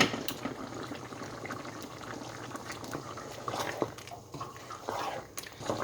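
Chicken stew thickened with coconut milk and cashew paste bubbling at a steady boil in the pot, a fine continuous crackle of popping bubbles.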